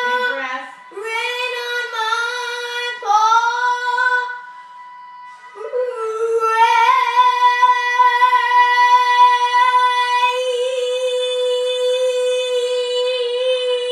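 Female solo voice singing the closing phrases of a show tune: a few short sung phrases, a brief breath, then one long held high note of about eight seconds that takes on a vibrato in its last few seconds.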